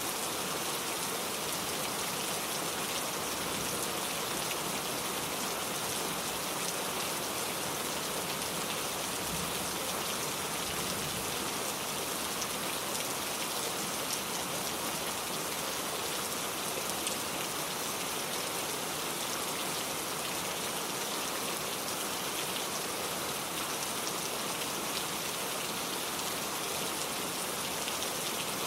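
Heavy rain falling steadily, a dense even patter of drops on surfaces with no let-up.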